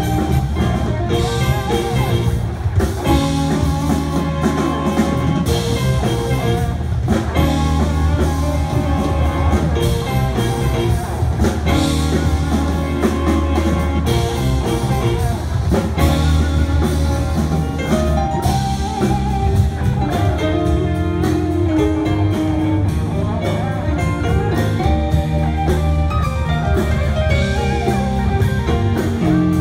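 A live rock band playing a song through a PA system: drum kit, electric guitars, bass and keyboard, with a singer.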